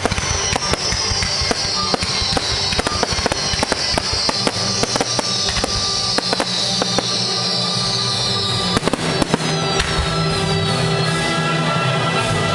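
Fireworks banging and crackling over music played along with the display. A high hiss drifts slowly lower in pitch and fades out about nine seconds in.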